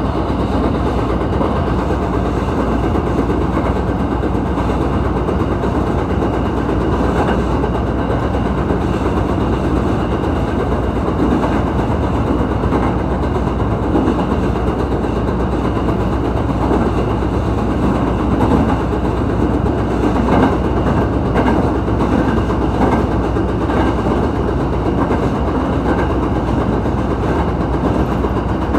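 Echigo Tokimeki Railway ET122 diesel railcar under way: its diesel engine running steadily, with rolling noise from the wheels on the rails.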